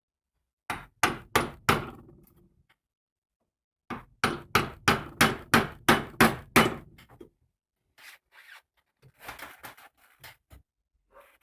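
Hammering on wood: four sharp blows about a second in, then a run of about nine blows at roughly three a second, followed by fainter light knocks and handling near the end.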